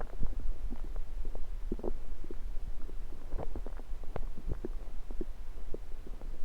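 Stomach rumbling: a quick, irregular run of short gurgles and bubbly squeaks over a steady deep rumble.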